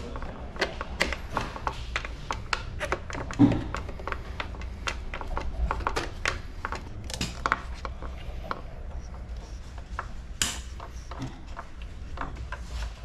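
Scattered light clicks and knocks of metal tools and parts being handled while refitting a mountain bike's rear shock, with one louder knock about three and a half seconds in and a steady low hum underneath.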